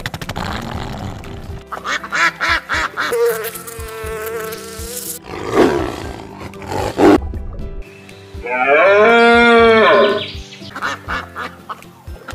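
Several different animal calls in turn over background music: a wavering call near the start, a noisy rasping stretch midway, and a loud call that rises and falls in pitch toward the end.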